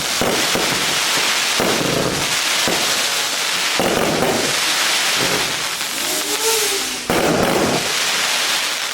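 A 146-shot consumer fireworks cake with 20, 25 and 30 mm tubes firing in a rapid, continuous volley of shots and crackling bursts, with a fresh loud burst about seven seconds in.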